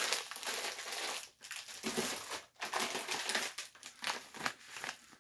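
Plastic food packaging crinkling and rustling in uneven bursts as grocery items are handled, with brief pauses between handlings.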